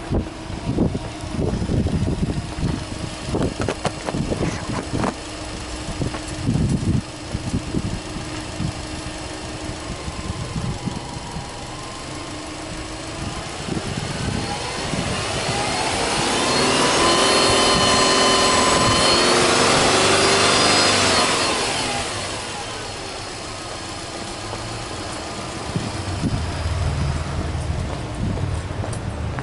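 Subaru Legacy 2.0GT's turbocharged 2.0-litre boxer four idling, then blipped once about halfway through: the engine note rises, holds high for a few seconds and falls back to idle. Scattered knocks in the first several seconds.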